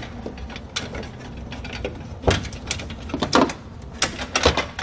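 Uneven metal clicks and clinks as a basic trailer-style pin is worked loose from the aluminum foot of a truck-bed fishing rod carrier, freeing its angle adjustment.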